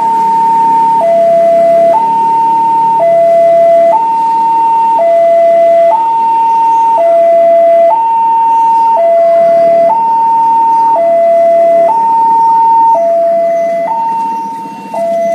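Electronic railway level-crossing alarm sounding a loud high-low two-tone warning, each tone held about a second, alternating steadily. The alarm is the signal that a train is approaching the crossing.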